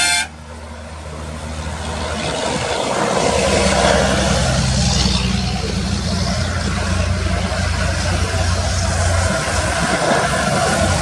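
Car engine with a straight-through exhaust running with a steady low drone. It grows louder over the first few seconds, then holds.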